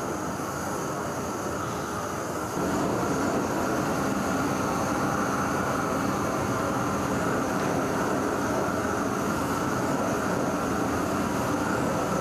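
Long-handled gas torch flame hissing steadily as it heats a bronze sculpture for a hot patina, louder from about two and a half seconds in.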